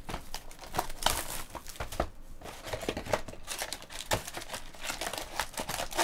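Crinkling and crackling of the plastic wrapping and cardboard of a sealed baseball card box being unwrapped and opened, then the wrapped packs inside rustling as hands dig into them. Irregular crackles with small clicks and taps throughout.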